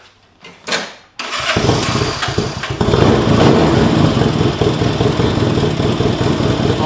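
Honda CA160 motorcycle's small air-cooled parallel-twin engine starting about a second in, then running steadily, a little louder from about three seconds in.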